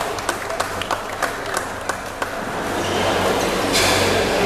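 Spectators clapping after a point in a badminton match. The applause thins to scattered claps and dies out about two seconds in. A short rush of noise follows near the end.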